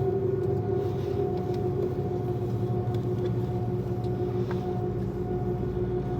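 Steady engine drone inside an airliner cabin: a constant low hum with an unchanging mid-pitched tone over it.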